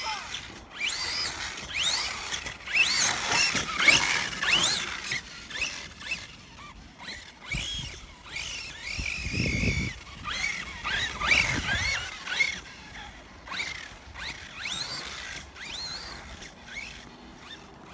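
Redcat Kaiju 1/8-scale RC monster truck's brushless motor on 4S, whining in short rising and falling revs again and again as it is driven hard on pavement, with a brief low rumble about halfway through.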